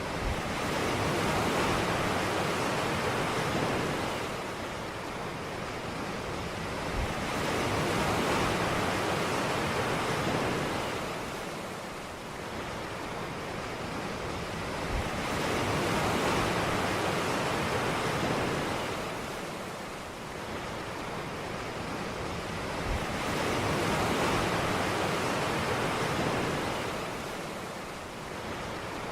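Sea waves breaking and washing up a beach, the surf swelling and easing about every eight seconds, four times over.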